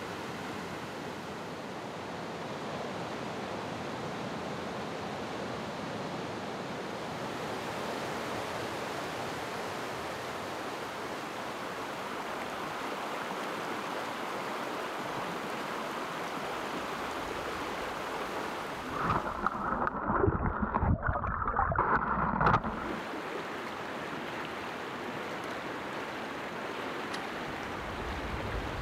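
A shallow river rushing steadily over rocks. About two-thirds of the way in, there are some three seconds of louder, uneven noise before the steady rush returns.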